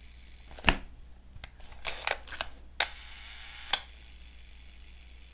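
1960 Leica M3 cloth focal-plane shutter being tested, lens off. A sharp click comes about a second in, then a few light mechanical clicks. Then the shutter fires at a slow speed: an opening click, about a second of the slow-speed escapement's whir, and a closing click.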